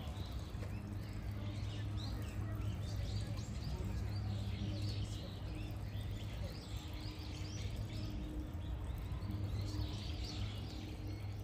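Outdoor ambience: a steady low hum with small birds chirping on and off.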